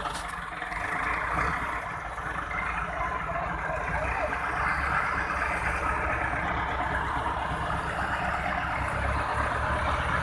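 Massey Ferguson 375 tractor's four-cylinder diesel engine running under load as it pulls a heavily loaded sugarcane trolley, slowly getting louder.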